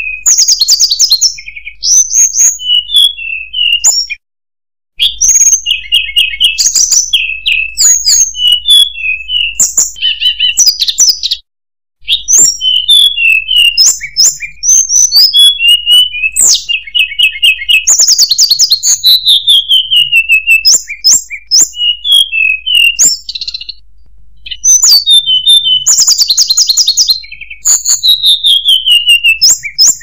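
Hill blue flycatcher (tledekan gunung) singing: loud, repeated phrases of clear whistled notes, many sliding downward, mixed with quick trilled runs. The song breaks off briefly about 4 seconds in and again about 11 seconds in.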